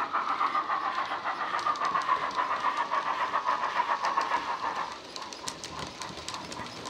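Model BR Standard 4MT steam locomotive's DCC sound decoder playing rapid exhaust chuffs through a small bass-enhanced speaker as it pulls away with a train of coal wagons, with a high note sliding slightly lower. About five seconds in the chuffing turns quieter and more spaced, with sharp clicks of the wheels on the track.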